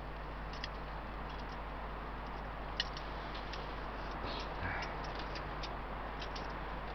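Meat sizzling on a small tabletop charcoal grill: a steady hiss with scattered small ticks and pops, the sharpest about three seconds in.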